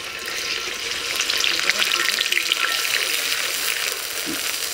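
Onion paste frying in hot mustard oil in an aluminium karahi as a metal spatula stirs it: a steady, dense sizzle thick with fine crackles.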